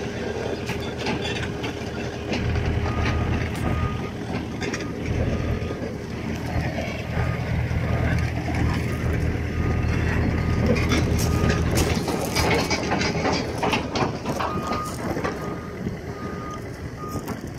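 Diesel engine of a Komatsu PC50MR-2 midi excavator running, its low hum growing heavier for about ten seconds before easing back. A backup alarm beeps faintly and repeatedly behind it.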